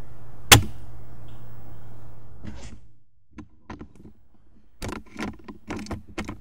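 A single sharp shot from a suppressed, HPA-powered KJW M700 bolt-action airsoft rifle about half a second in, over a steady low hum. The hum fades out about three seconds in, leaving a run of short, irregular clicks and knocks.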